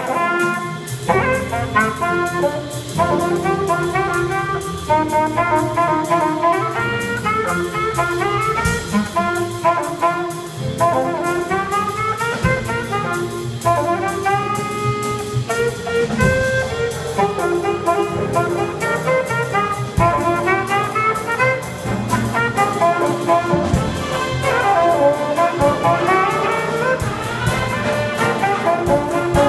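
Student jazz band playing: trumpets, trombones and saxophones in ensemble over a steady beat.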